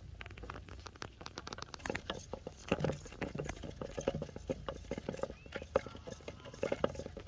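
Rapid, irregular crackling and rustling of string being handled against a plastic drink bottle in grass. It gets busier about two seconds in.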